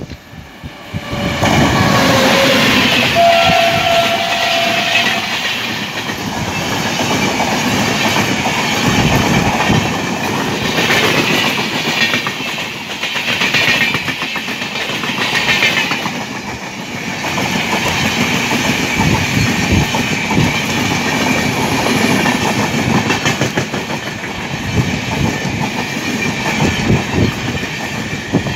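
Electric locomotive horn sounding briefly near the start, one tone falling in pitch, followed by a long passenger train of LHB coaches passing at speed, its wheels clattering steadily over the rails.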